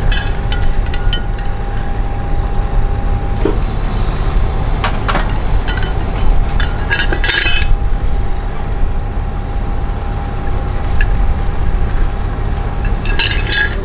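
Scattered metallic clinks and knocks from a quayside crane's hook and chain and a steel trolley as a swordfish is lowered onto the trolley, with bunches of clinks about five, seven and thirteen seconds in. Under them a steady low rumble and a thin steady whine, the whine stopping near the end.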